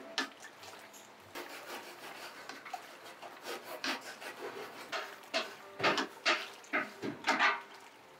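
Wooden paddle stirring curdling soy milk in an aluminium bowl, rubbing and scraping against the metal in irregular strokes that grow louder and quicker in the second half.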